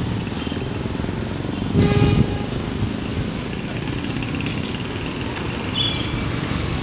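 Street traffic on wet pavement, a steady rumble and hiss of passing vehicles. A vehicle horn toots briefly about two seconds in.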